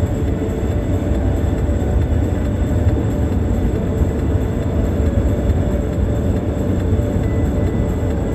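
Steady low road and engine rumble of a car driving at highway speed, heard inside the cabin.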